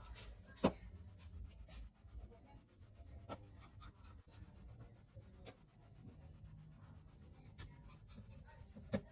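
Faint scratching and small clicks of tools being handled on a phone-repair bench, over a low steady hum. There is a sharp click about two thirds of a second in and another near the end.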